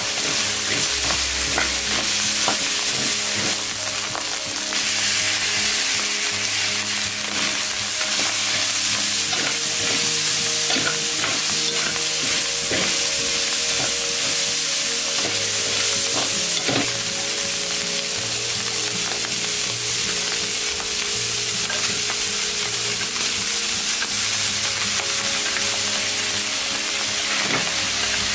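Ground pork and mixed vegetables sizzling in a hot oiled wok, with a metal spatula scraping and clacking against the pan as the mixture is stir-fried.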